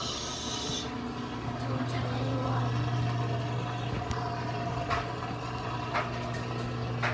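A steady low mechanical hum, with a brief hiss at the start and a few light knocks in the second half.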